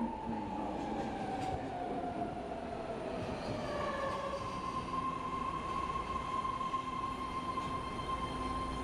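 Inside a moving rapid-transit train car: steady running noise with a whine that slides down in pitch over the first few seconds. A higher whine comes in about three seconds in and holds steady.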